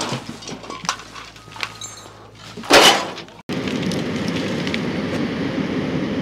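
Clattering knocks of storm debris being handled, with one loud crash just under three seconds in. After an abrupt cut, a compact track loader's engine runs steadily.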